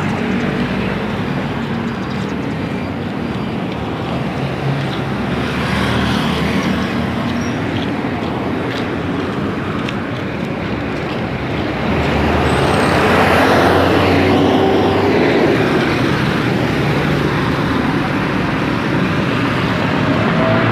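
Steady road traffic on a highway: cars and jeepneys driving past, with engines running and tyres on the road. It grows louder from a little over halfway through as vehicles pass close.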